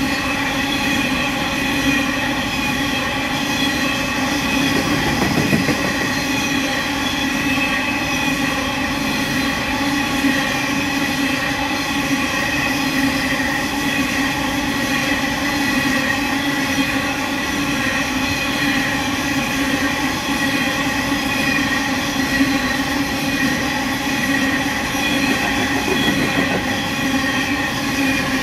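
Coal train of QR National hopper wagons rolling past: a steady rumble of steel wheels on the rails, with a steady whine at several pitches held over it throughout.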